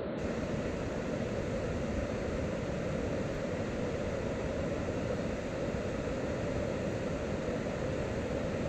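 Large waterfall, the Upper Falls of the Genesee River, pouring steadily: an even, unbroken deep rushing.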